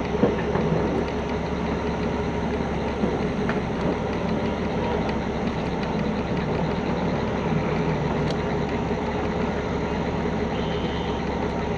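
Heavy-truck diesel engines running steadily at low revs, an even drone, with one brief knock near the start.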